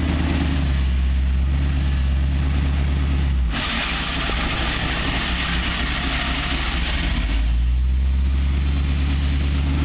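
1976 Ford Bronco's engine running low and steady at crawling speed. For about four seconds in the middle, the engine hum drops away under a loud rushing hiss.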